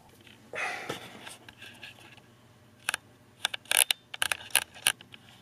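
Close handling noise: a soft rustle, then a quick, uneven run of sharp clicks and scrapes.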